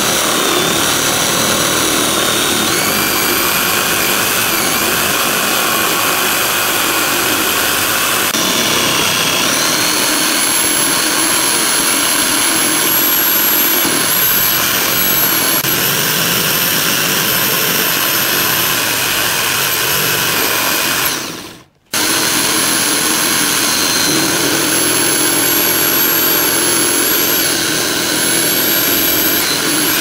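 Electric drill boring into a wooden board with a Forstner bit: a steady motor whine over the bit cutting wood, its pitch stepping up and down a few times. About two-thirds of the way through it briefly stops, then runs again.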